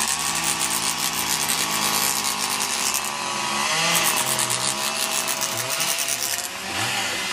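Corded electric chainsaw cutting into a wooden log, the chain rasping through the wood. The motor's pitch dips and recovers several times as the chain bites and frees, most markedly in the second half.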